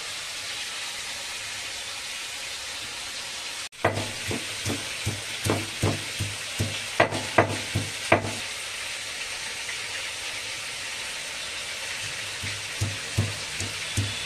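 Marinated chicken sizzling steadily as it fries on high flame in an iron karahi. Two runs of quick knocks, about two or three a second, come a few seconds in and again near the end.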